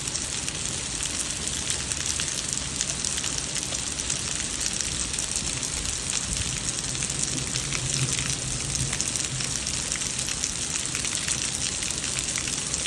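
Heavy rain with quarter-sized hail pelting down: a dense, steady hiss dotted with many sharp ticks of hailstones striking.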